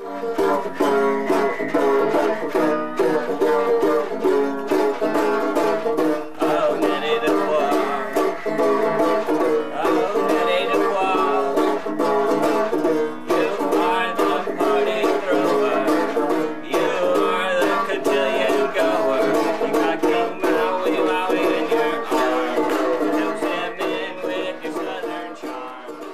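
Three-string banjo in a homemade tuning, played as a fast, busy run of plucked notes, with no singing.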